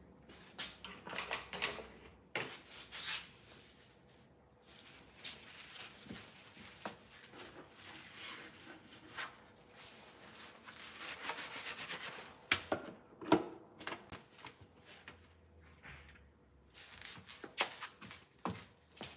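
Irregular rustling, rubbing and scraping of a person moving about and handling things close to the microphone, with a couple of sharp knocks about two-thirds of the way through.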